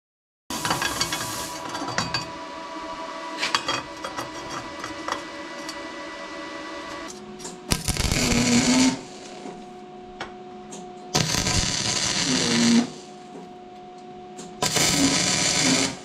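A power tool run in three short bursts a few seconds apart, after several seconds of clicking and rattling, with a steady hum between the bursts.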